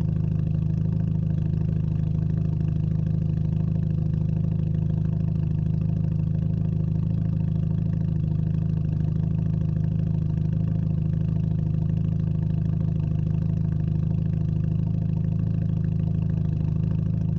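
Straight-piped Hyundai Genesis Coupe idling, its exhaust a steady low drone heard close to the tailpipes.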